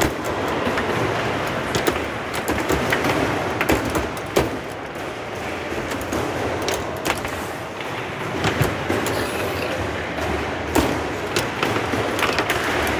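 Foosball table in play: irregular sharp clacks and knocks as the ball is struck by the plastic players and the rods are slammed and spun, over a steady background noise.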